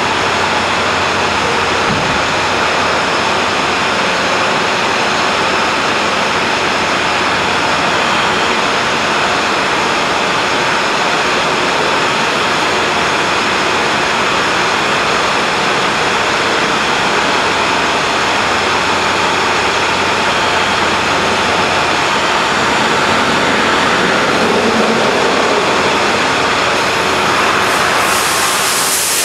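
Steady rushing noise of a tow truck's engine as it rolls slowly into a touchless truck wash bay, mixed with the running water and pumps of the wash. Near the end a higher hiss comes in.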